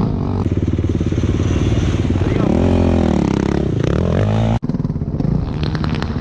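Kawasaki KX450 dirt bike's single-cylinder four-stroke engine heard from on board, revving up and easing off under throttle on loose mulch. The sound cuts out for an instant about four and a half seconds in, then the engine carries on.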